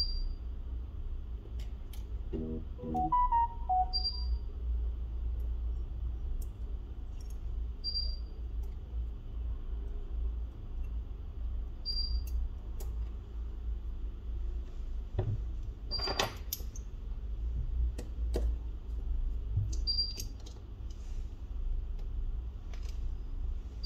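Scattered small metallic clicks and taps of hand tools working on a phone being taken apart, over a steady low hum, with a short high beep repeating about every four seconds.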